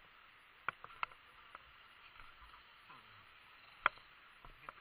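A few sharp clacks and knocks of boots stepping on rock and loose dirt, three close together about a second in and a louder one near the end, over a steady faint hiss.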